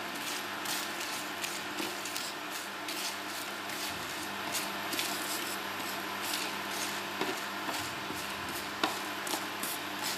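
Wooden spatula scraping and stirring whole spices (dried red chillies, cumin, fennel and coriander seeds) across a flat non-stick tawa as they dry-roast, with irregular scrapes and little clicks of seeds over a steady faint hum.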